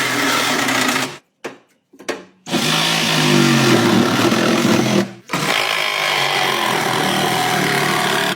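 A small power tool running, heard in short clips cut together, with abrupt breaks to silence about a second in and again around five seconds in.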